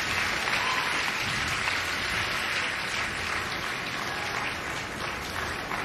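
Arena crowd applauding steadily, a dense even clapping that eases off a little toward the end.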